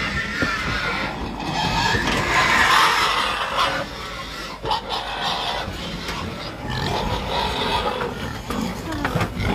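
Pigs packed in a livestock transport truck calling and squealing together, with a low rumble underneath.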